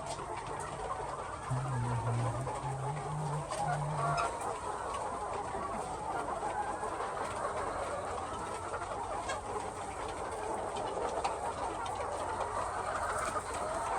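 A large flock of chickens clucking all at once, a steady, dense chatter of many overlapping calls, with a brief low hum about two seconds in.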